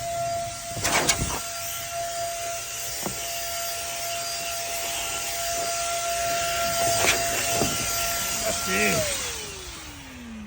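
Small handheld electric air blower running, a steady high motor whine over rushing air as it blows dust and debris out. About nine seconds in it is switched off and the whine slides down in pitch as the motor spins down.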